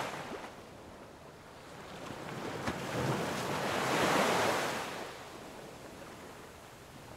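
Open-sea water washing and wind buffeting the microphone on a boat under way. The rush swells to a peak about four seconds in, then fades.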